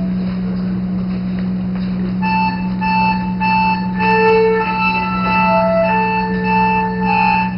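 Cello and accordion playing together: a low note is held steady throughout. About two seconds in, the accordion's reeds come in with a melody of short notes repeated about twice a second.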